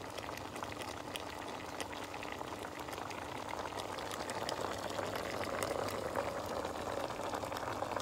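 Tomato-and-beer sauce bubbling and popping in the pan around mussels and prawns, still simmering on residual heat after the burner has been switched off. The bubbling grows a little louder about halfway through.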